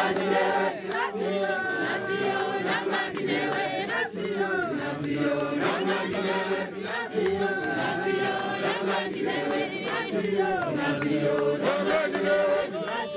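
A congregation singing a hymn together in chorus, many men's and women's voices with no instruments.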